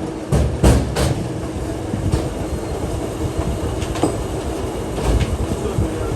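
Metal lathe running steadily with a constant hum, with several sharp metallic knocks over it.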